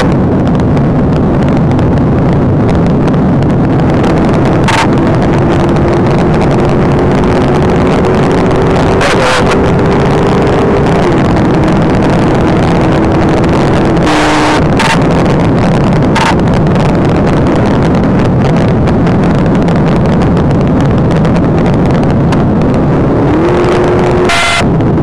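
Patrol car driven flat out at over 100 mph, heard from inside: a loud, steady roar of engine, wind and road. The engine's tone climbs slowly, drops back twice about midway and rises again near the end. A few brief knocks come through.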